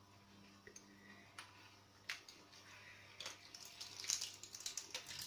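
Faint wet squishing and small ticks of a lemon half being squeezed by hand over a glass, with juice dripping in; the sounds come thicker between about three and five seconds in.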